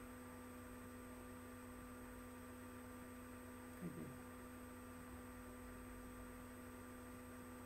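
Quiet, steady electrical hum with a faint hiss, the recording's background tone; a brief voice sound about four seconds in.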